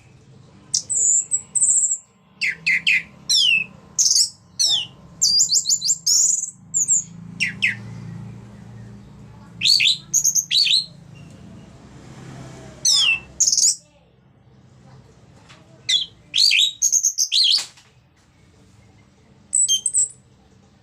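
Orange-headed thrush singing in short, loud phrases of rapid high whistled notes, many sweeping downward, with pauses of a second or two between phrases over a faint low hum.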